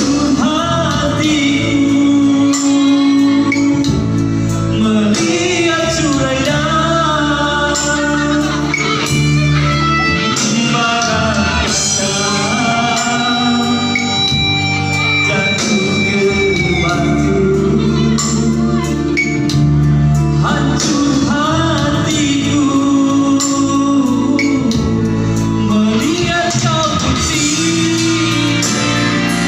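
Live band music with a melody sung over guitar and a steady bass line.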